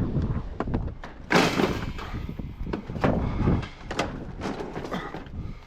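Knocks and clunks of junk being handled, with one louder scraping crash about a second and a half in, followed by several short knocks; wind buffets the microphone at the start.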